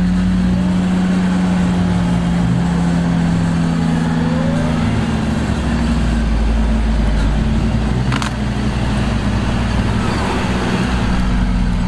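Troller T4's diesel engine working under load at steady revs as the jeep crawls up a rutted mud bank, a constant drone held throughout. A brief sharp click about eight seconds in.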